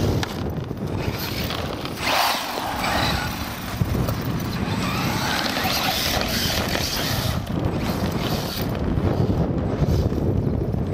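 Radio-controlled Acme Trooper truck driving over sand piles, its motor and drivetrain whining with a hiss, loudest from about two seconds in until near the end. A short knock right at the start, and heavy wind rumble on the microphone throughout.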